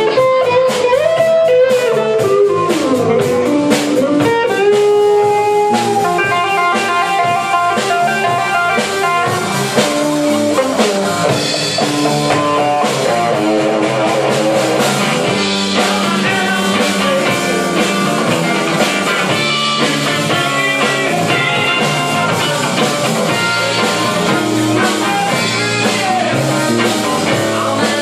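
Live blues-rock trio playing an instrumental passage: electric guitar lead lines with bent, gliding notes over bass guitar and a drum kit.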